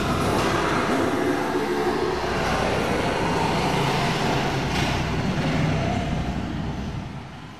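Enduro dirt bike engines revving up and down hard as riders climb over a pile of giant tires. The sound fades out near the end.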